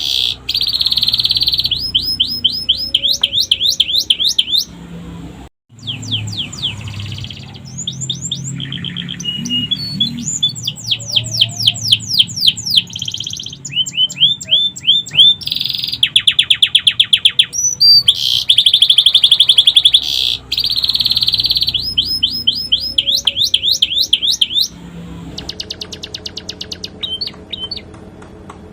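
Domestic canary singing loud, fast trills and rapid repeated sweeping notes, changing phrase every few seconds: a song filled with phrases copied from the sikatan londo. The song breaks off abruptly for a moment about five and a half seconds in.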